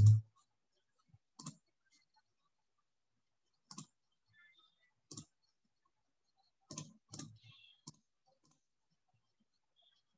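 Scattered clicks at a computer: about half a dozen short sharp clicks, with a quick cluster of three near the end and quiet gaps between.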